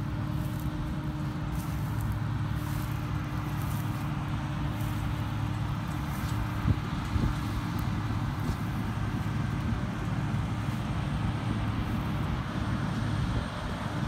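Claas Lexion 570+ combine harvester running steadily while cutting spring barley with its Vario 750 header: an even engine and threshing drone with a constant hum tone through it.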